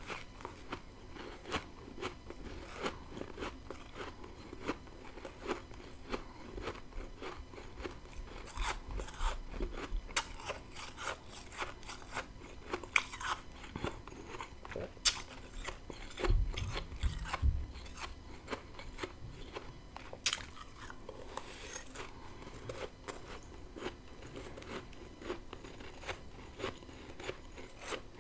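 Close-miked chewing of freezer frost: many crisp crunches in quick succession as mouthfuls of powdery ice are bitten and ground between the teeth, with a brief low thump about two-thirds of the way through.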